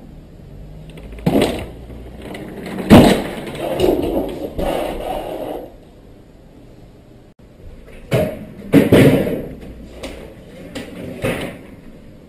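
A series of loud bangs and knocks with scraping rumble between them. There is one about a second in, the loudest about three seconds in followed by a couple of seconds of rumbling scrape, a pair close together past the middle, and a last one near the end.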